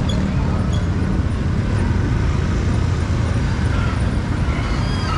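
Street traffic noise: a steady low rumble of vehicles running past.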